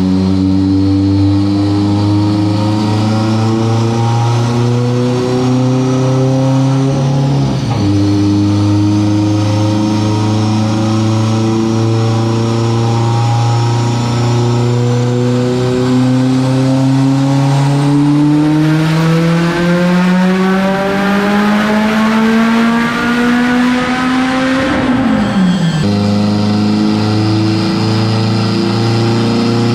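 Turbocharged Subaru STI flat-four making a dyno pull. The revs climb with a rising turbo whine, dip briefly about a quarter of the way in, then climb again, faster toward the top. Near the end the throttle is let off and the revs drop sharply to a lower steady running note.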